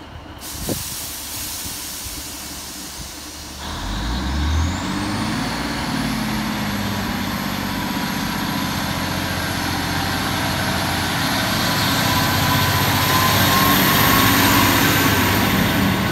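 Diesel train pulling away from the platform. A brief hiss at the start, then about four seconds in the engine opens up, its note climbing with a rising whine that settles into a high steady tone, and the train runs on under power, growing louder.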